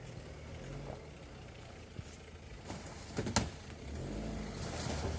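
Motor vehicle engine running with a low steady hum, with a couple of sharp clicks about three seconds in.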